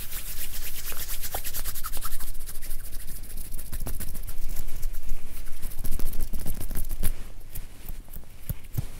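Hands rubbing and brushing close to the microphone, making a fast, scratchy rustle.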